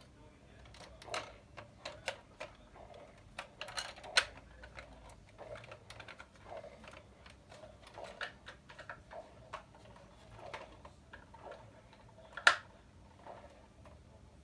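Scattered small plastic clicks, taps and rattles from handling a remote-control toy car while batteries are fitted into its battery compartment. Two sharper clicks stand out, about four seconds in and near the end.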